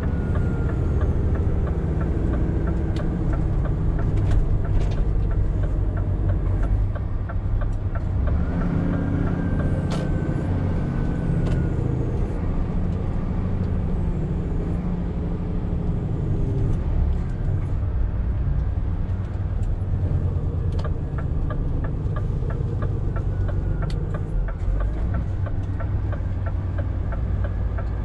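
Scania R520 truck's diesel engine running under way, with road noise. The engine pitch shifts up and down now and then.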